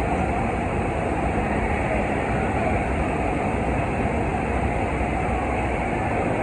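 Steady rush of water from a FlowRider sheet-wave machine, a thin sheet of water pumped at speed up the padded slope. The noise is loud and even throughout.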